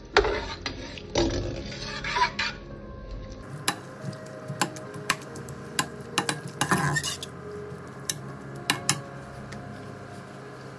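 A steel spoon stirring sliced onions and green chillies in oil in a large aluminium pot, scraping the bottom, with sharp clinks of the spoon against the pot's sides. The scraping is dense for the first few seconds, then gives way to separate clinks that die out near the end.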